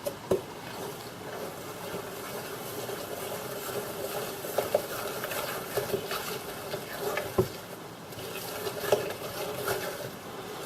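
Thick peanut butter cookie dough (peanut butter, sugar and egg) being stirred by hand in a mixing bowl. The stirring gives a continuous scraping sound with a few sharp knocks of the utensil against the bowl.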